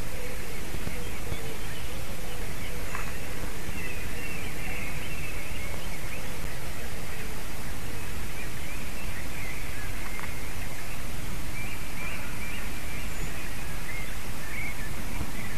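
Steady rushing wind noise on an outdoor microphone, with faint bird calls wavering on and off throughout.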